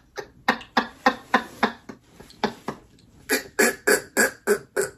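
A woman laughing hard in quick repeated bursts, about three or four a second, breaking off briefly twice before a louder run of laughter in the second half.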